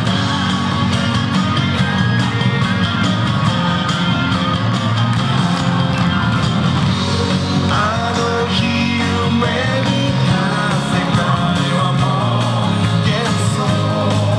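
Pop song with a steady beat, guitar and singing, played back as music for a dance routine.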